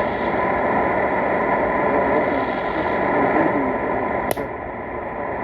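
Shortwave radio receiver hissing with static, a weak station signal faintly audible under the noise and hard to make out. A single click about four seconds in, after which the high hiss drops away.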